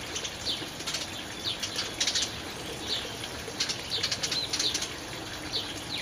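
Background songbirds: orioles chattering and a song sparrow singing, heard as short repeated bursts of high, rasping notes with a few brief whistled notes, about one or two a second.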